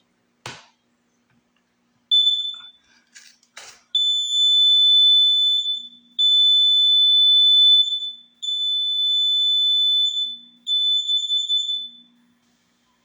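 Kidde carbon monoxide detector sounding its alarm under a test-button press. After a brief beep about two seconds in and a couple of clicks, it gives four long, high-pitched tones of about a second and a half each, separated by short gaps. It stops near the end.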